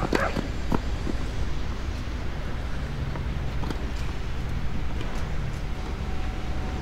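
Tennis ball struck by racket and bouncing during a rally: a few sharp knocks in the first second, the loudest about three quarters of a second in. Then a steady low rumble of wind on the microphone.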